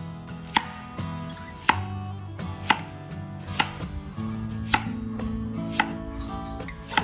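Cleaver slicing through a carrot and striking a thick wooden chopping block: sharp knocks about once a second.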